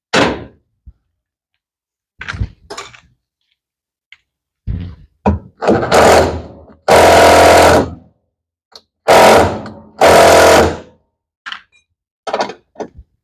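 Cordless screwdriver with a 12 mm socket running in four bursts of about a second each, working at the bolts, after a few knocks of tools. The screwdriver is on a weak battery and lacks power.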